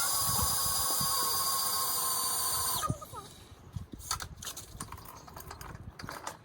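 Cordless power tool running steadily at one speed, then cutting off about three seconds in. Scattered light clicks and knocks follow.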